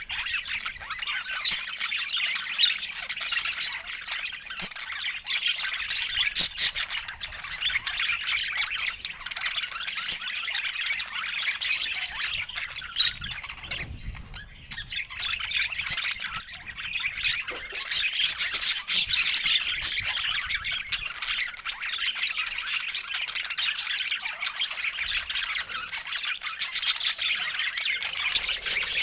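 Budgerigars chattering and squawking, a dense, busy run of overlapping chirps and warbles that eases briefly about halfway through.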